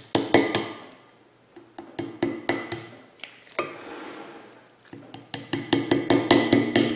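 Hammer tapping a punch to drive a rubber grease seal into the hub of a front brake rotor, each tap ringing in the metal. A few taps come near the start and a handful around two seconds in, then a quick run of light taps from about five seconds in.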